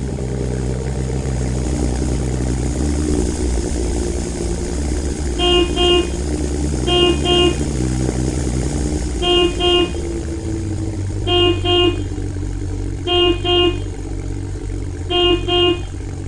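A vehicle engine running steadily with a couple of brief revs. From about a third of the way in, a horn beeps in quick pairs, six double toots about two seconds apart.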